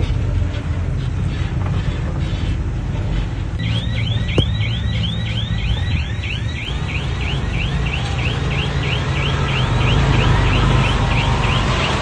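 Komatsu bulldozer's diesel engine running steadily under work. About three and a half seconds in, a rhythmic high squeaking joins it, about three squeaks a second, each rising and falling in pitch.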